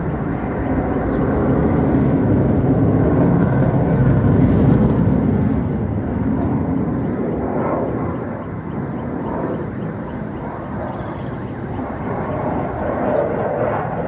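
Fighter jet flying overhead: a loud jet engine roar that swells to its loudest about four to five seconds in, then eases off.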